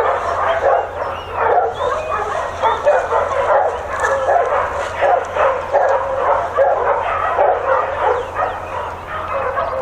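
A pack of kennelled dogs barking and yipping all at once, the barks overlapping into a continuous, unbroken din.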